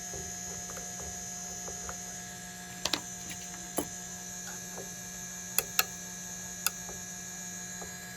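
Monoprice 3D printer's fans humming steadily after a finished print, with a handful of short sharp clicks and taps as the freshly printed part is worked off the build plate.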